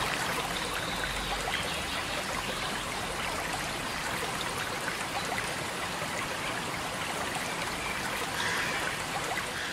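Stream water flowing steadily, an even rush of moving water without a beat or tune.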